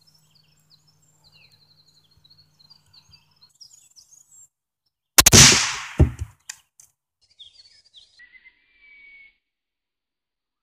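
.22 rifle firing a single CCI Mini Mag round: one sharp crack about five seconds in with a short ringing tail, followed by a shorter, duller knock just under a second later. Birds chirp faintly before and after the shot.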